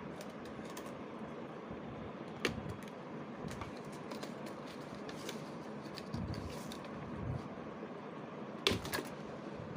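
Scattered small clicks and taps of a laptop being worked on by hand, over a steady hiss, with a sharper pair of clicks near the end.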